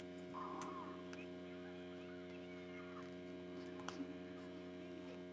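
Steady low electrical hum made of several even tones, with faint scratching of a pencil on paper and a couple of small clicks about four seconds in.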